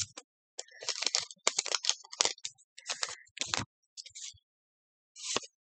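Pokémon trading cards and their packaging being handled: a quick run of short crinkling clicks and rustles, then one more near the end.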